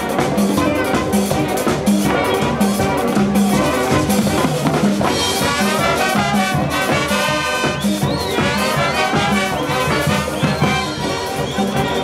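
A Peruvian brass band playing: trumpets, trombones and sousaphone over drum kit, timbales and congas, with a steady beat and a repeating bass line.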